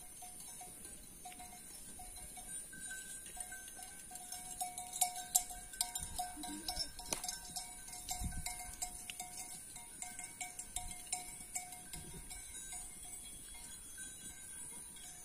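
Bells worn by a grazing flock of sheep and goats clinking and ringing irregularly, busiest in the middle, over a steady high hiss.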